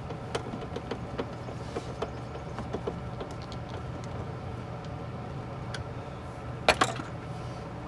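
Small clicks and taps of hands working the plastic door trim panel of a 1998 Ford Expedition, with a sharper double click near the end, over a steady low hum.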